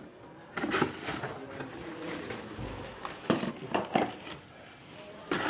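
A few knocks and clatters of a new mixer grinder's jars and lids being handled, with no motor running.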